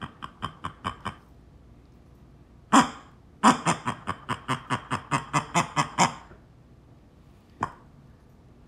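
Rubber fart-noise bear toy squeezed by hand, letting out sputtering fart sounds. A run of quick toots, about five a second, stops about a second in. A short blast comes near the three-second mark, then a longer sputtering run of about a dozen toots, and a single short toot near the end.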